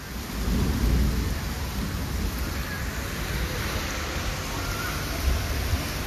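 Heavy rain falling, with a strong, uneven low rumble coming in about half a second in and running on underneath.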